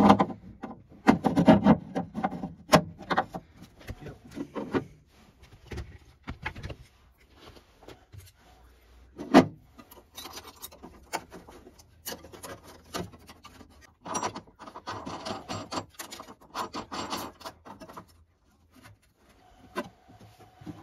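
Hands handling metal parts in a HMMWV's battery box: a run of knocks, clicks and scrapes, with a sharper knock about nine seconds in and a few seconds of rubbing and scraping a little later.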